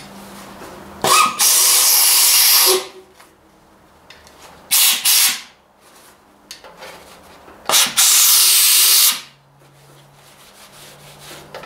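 Three blasts of a compressed-air blow gun, hissing for about two seconds, then under a second, then about a second and a half, blowing dirt and old coolant out of the passages of a tractor engine part.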